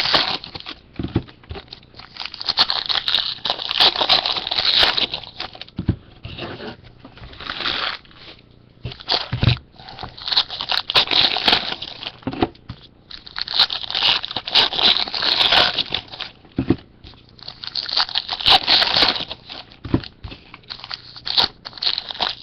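Trading card packs being torn open and their wrappers crinkled by hand, in repeated bursts of tearing and rustling with short pauses, and a few soft thuds.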